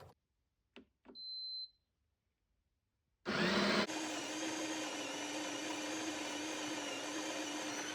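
Two clicks and a short high beep from the Ninja espresso machine's controls. About three seconds in, its built-in grinder starts with a loud burst and runs steadily, grinding coffee into the portafilter.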